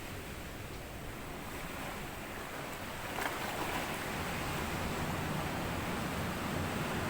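Small sea waves breaking and washing up over sand, a steady rush that swells as a wave surges in about three seconds in.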